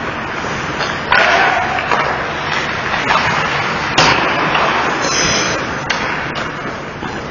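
Ice hockey play: skates scraping on the ice, with sharp knocks of sticks, puck or boards, the loudest about four seconds in.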